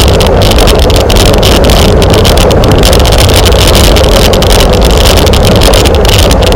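Loud, steady wind rushing over the camera microphone at riding speed, a dense roar with no pauses.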